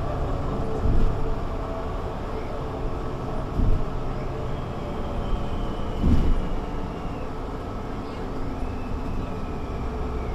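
A 2020 Mercedes-Benz Citaro C2 G articulated bus on the move, heard from inside: a steady low rumble of engine and running gear, with three louder thumps about one, three and a half and six seconds in, and a faint thin high whine twice in the second half.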